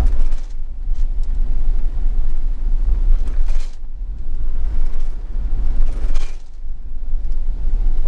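Camper van driving on a wet road, heard from inside the cab: a steady low rumble of engine and road with a haze of tyre noise on the wet surface. The noise swells briefly twice, about three and a half and six seconds in.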